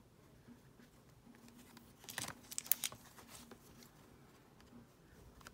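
Trading cards being handled in a stack: a few short rustles and clicks about two to three and a half seconds in, over a faint low hum.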